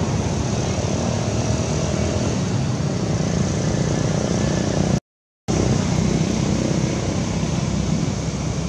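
Steady low rumbling noise, cut by a half-second dropout to silence about five seconds in.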